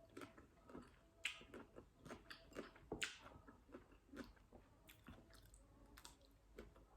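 Faint close-up chewing of crunchy green mango: irregular small crunches and wet mouth clicks.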